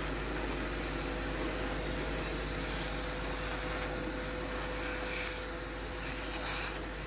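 Steady rushing noise of a large oil-field fire being fought with a water hose, with a faint steady hum underneath.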